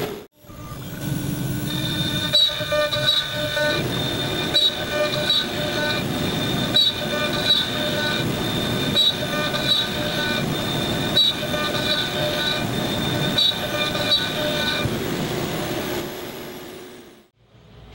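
CNC router spindle with a shop vacuum running, the bit milling a slot through end-grain walnut: a steady high whine with swells in load repeating every couple of seconds. It fades out near the end.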